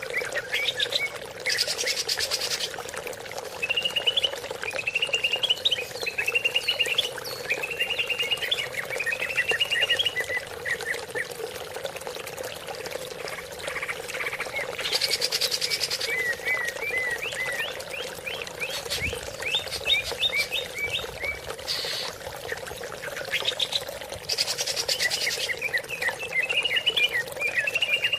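Green leafbird (cucak ijo) singing: runs of quick, rising chirped notes repeated phrase after phrase, broken by three short harsh, buzzy bursts. A steady faint hum sits underneath throughout.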